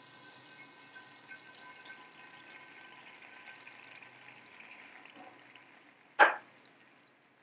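Batter pouring in a thin stream into hot frying oil in a wok, with faint sizzling and small ticks. A single sharp knock about six seconds in.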